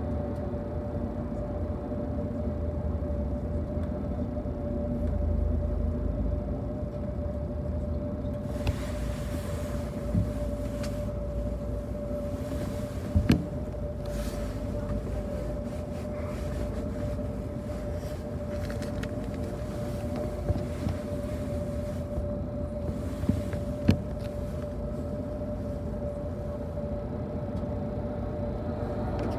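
Interior of a city bus on the move: steady engine and road rumble with a constant whine, and a few sharp knocks and rattles from the body, the loudest a quick double knock about halfway through.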